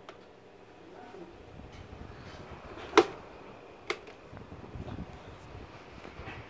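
Two sharp clicks about a second apart, the first and louder about three seconds in, as the push buttons on a Sanken stand fan's control panel are pressed to switch it on. A low rumble of moving air from the fan sets in from about a second and a half in.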